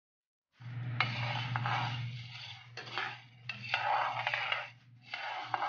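Dry mung beans toasting in a frying pan, stirred with a metal ladle: the beans rattle and the ladle scrapes across the pan in about four strokes, with a few sharp clicks. A steady low hum runs beneath. It starts about half a second in.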